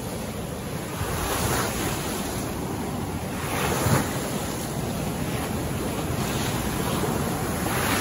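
Floodwater released through a reservoir's sluice gates, rushing and churning in a steady, heavy torrent, briefly louder about four seconds in. Wind buffets the microphone.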